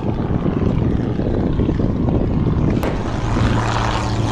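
Propeller biplane's engine droning steadily overhead. The drone comes in clearly about three seconds in, over an even rushing noise.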